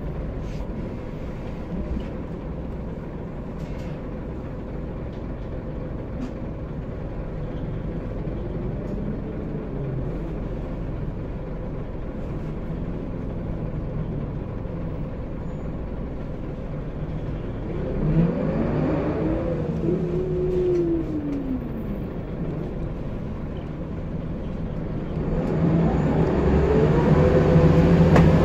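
Scania L94UB bus's rear-mounted 9-litre five-cylinder diesel heard from inside the saloon while on the move, its engine note repeatedly rising and dropping back as it pulls through the gears. It climbs and falls most sharply about two-thirds of the way in, and grows louder under acceleration near the end.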